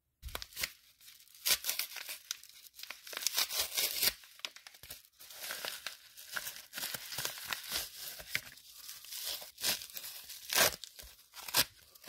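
Padded kraft bubble mailer being torn open by hand, the paper ripping in a long series of short, sharp tears, the loudest near the end.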